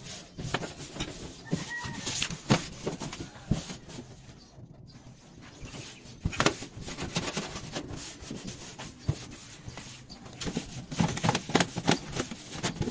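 A cloth rag wiping and rubbing over a freshly sanded, rusty corrugated galvanized iron roof sheet in uneven scuffs and knocks, clearing off the rust dust left by sanding.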